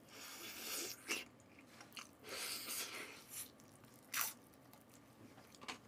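Quiet chewing of crispy soy-sauce fried chicken: several soft crunching bites, with sharper crunches about a second in and again about four seconds in.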